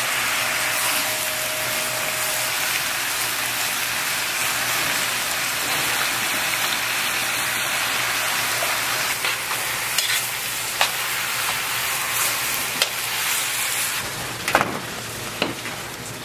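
Sliced zucchini, onion and carrot stir-frying in a large pan, a steady sizzle as they are tossed with tongs. From about nine seconds in come sharp metal clicks and knocks, loudest near the end as the sizzle dies down.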